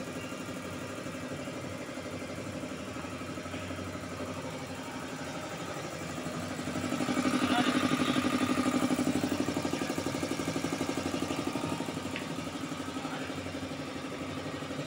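Swan belt-driven piston air compressor with a three-phase electric motor running, its pump making a steady, fast, even pulsing as it fills the receiver tank. It is louder for a few seconds in the middle.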